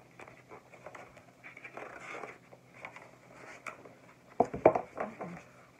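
Pages of a hardcover picture book being handled and turned: light paper rustling, then a few sharper knocks and flaps about four and a half seconds in as the page goes over.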